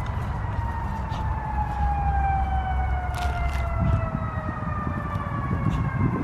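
A distant siren, its pitch falling slowly all the way through, over a low steady rumble of wind on the microphone.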